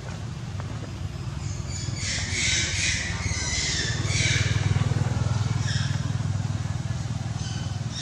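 Low, steady hum of a motor vehicle's engine that gets louder about four seconds in, with a run of high-pitched sounds from about two to five seconds in.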